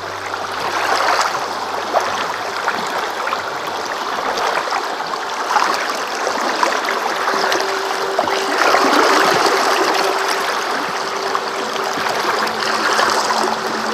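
Fast river water rushing and splashing right against the side of an inflatable boat, swelling and easing in surges every few seconds.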